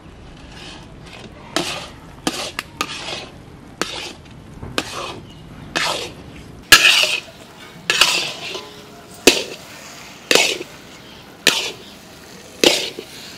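Metal spatula stirring and scraping thick semolina sheera around a wide black kadhai, with sharp strokes about once a second that grow louder in the second half. This is the sheera being worked together after banana and cardamom go in, as it thickens to done.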